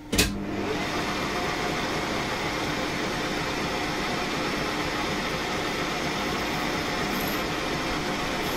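Smart & Brown toolroom lathe started up at a higher spindle speed: a clunk as it engages just after the start, then the spindle and headstock running with a steady whirring noise.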